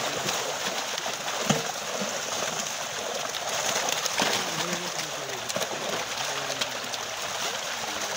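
A mass of fish thrashing and splashing at the surface inside a seine net drawn tight in shallow water: a continuous dense splashing with a few sharper slaps, the loudest about one and a half seconds in.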